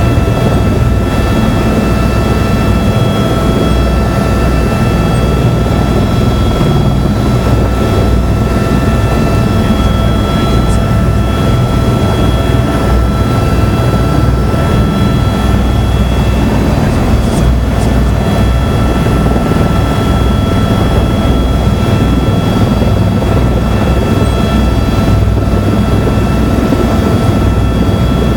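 Helicopter engine and rotor running steadily, heard from inside the cabin: a constant high whine over a loud low rumble.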